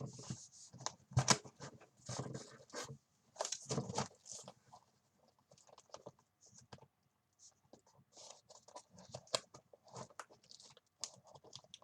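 A stubborn product package being pried and pulled open by hand: irregular scraping, tearing and clicking of the packaging, quieter for a few seconds in the middle before another round of handling.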